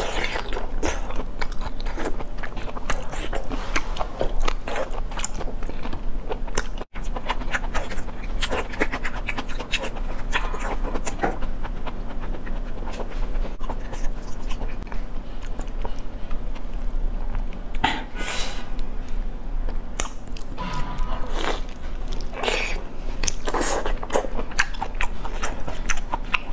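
Close-miked eating of raw soy-marinated black tiger prawns: wet chewing, sucking and smacking of the lips, with a constant stream of small clicks and a few louder stretches in the last third.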